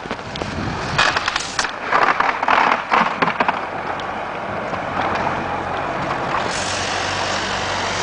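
House demolition: crunching and cracking of debris as the building is torn down, loudest in the first few seconds. A heavy machine's engine then runs steadily with a hiss from about halfway through.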